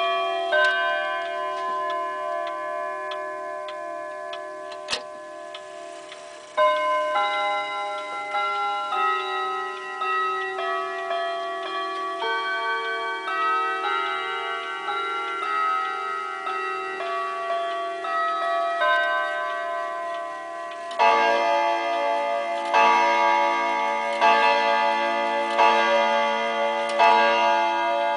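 Jawaco pendulum wall clock chiming its hour melody, a run of ringing notes one after another, then striking the hour with five louder strokes about a second and a half apart, starting about three quarters of the way through: five o'clock.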